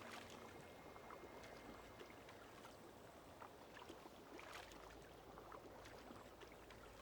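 Faint water sounds, near silence: a low wash with scattered small splashes and drips, as of water lapping or a paddle in calm water.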